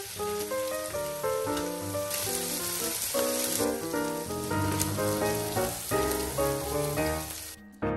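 Razor clams sizzling in hot oil with garlic in a grill pan, under background music with a melody of changing notes. The sizzling stops near the end while the music carries on.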